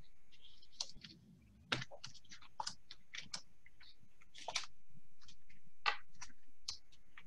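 Tarot cards being handled and counted through on a desk: an irregular run of small clicks and snaps as cards are picked up and laid down.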